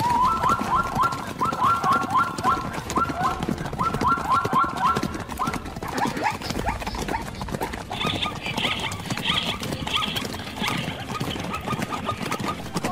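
Animal calls: bursts of four or five quick, repeated yelping calls during the first few seconds, then higher, chirping calls about eight seconds in, over scattered scuffling clicks.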